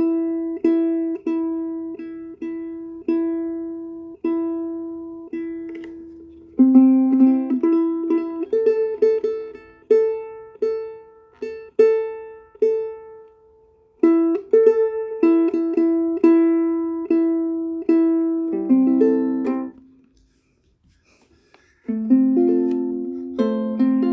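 Low-G ukulele being played: single picked notes at first, then fuller chordal playing, stopping for about two seconds near the end before resuming with chords.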